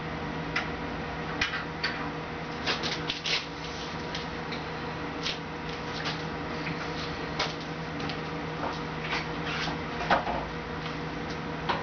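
Manual sheet metal brake being worked: scattered metal clicks and knocks from its clamp handles and jaw as a strip of 16-gauge mild steel is clamped and bent, the loudest knock about ten seconds in. A steady low hum runs underneath.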